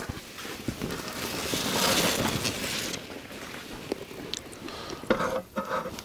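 Rustling and crunching as a person moves out of a tent and steps across snow, loudest for about a second near the start, with scattered crackles from a wood fire in a small fire pit. A short pitched sound comes about five seconds in.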